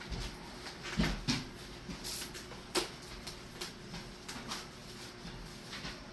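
Scattered light taps and rustles of hands handling a boxed Funko Pop figure and its cardboard and plastic packaging.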